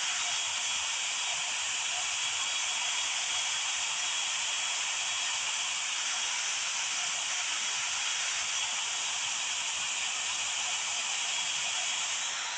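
Llano 1400W brushless-motor hair dryer running steadily: a continuous rush of air with a thin, steady high whine.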